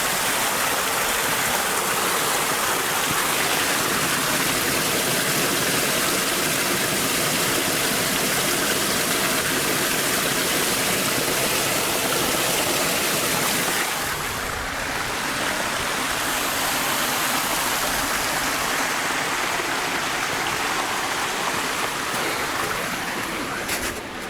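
Water pouring over a small waterfall: a steady rushing noise that eases slightly about fourteen seconds in.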